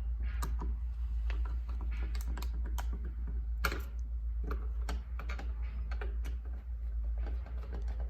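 Small irregular clicks and taps of a screwdriver and metal lock parts as tiny screws are driven in to fasten a keypad deadbolt's interior assembly, over a steady low hum.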